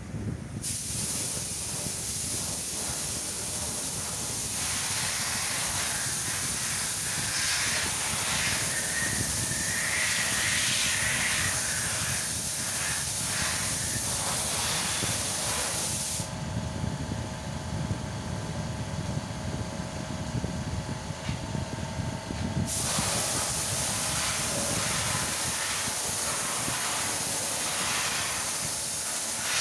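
Compressed-air paint spray gun hissing steadily as it sprays. The spray stops for about six seconds around the middle, then starts again.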